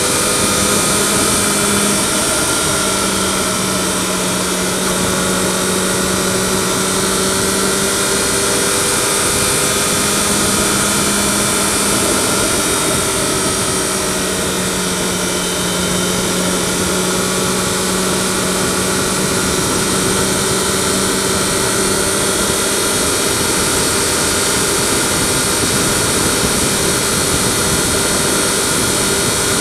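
Yamaha FZ6R motorcycle's inline-four engine running at a steady cruise, its pitch shifting slightly up and down with small changes in throttle, under a steady rush of wind noise. Recorded through a microphone hidden behind the fairing.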